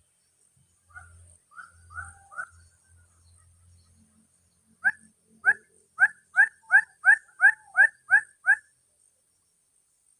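A bird's calls: a few soft rising notes, then a run of about eleven sharp, short rising chirps at roughly three a second, stopping near the end. A faint steady high-pitched insect whine runs underneath.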